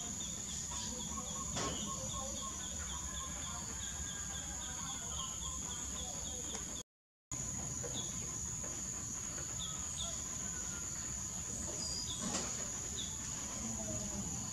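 Outdoor ambience: a steady high-pitched insect drone with short chirps repeating a few times a second, sparser in the second half. The sound drops out completely for a moment about seven seconds in.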